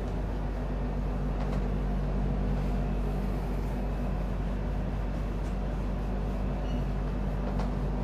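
A duster rubbing across a whiteboard in continuous wiping strokes, a steady scrubbing noise over a low steady hum.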